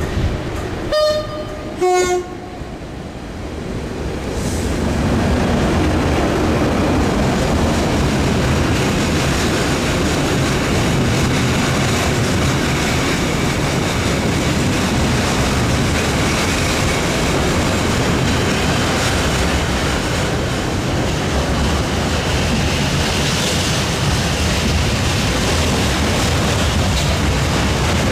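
Freight locomotive sounding a two-tone horn, a short higher note then a lower one about a second later. It then runs past hauling container wagons, a loud steady rumble and rattle of wheels on rail.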